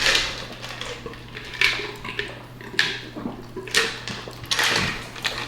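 Eating noises close to the microphone: short, sharp crunches and clinks of cutlery on dishes, about one a second, over a steady low hum.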